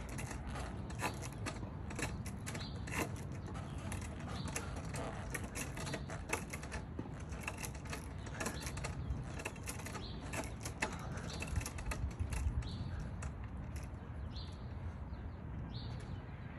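Outdoor ambience: a steady low rumble with many irregular sharp clicks, and a few short bird calls in the last few seconds.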